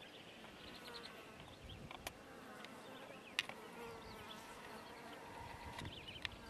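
Faint, wavering buzz of flying insects' wings around a pile of scat, with two sharp ticks about two and three and a half seconds in.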